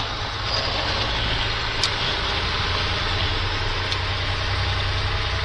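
Caterpillar 3406E inline-six diesel of a Freightliner FLD120 semi truck running at low speed, heard from inside the cab as a steady low hum.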